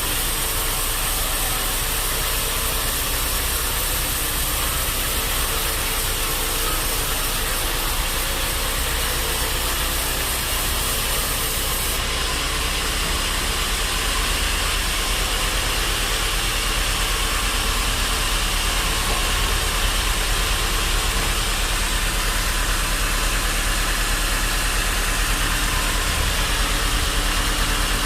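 Band sawmill machinery running steadily, a continuous loud mechanical noise with no breaks.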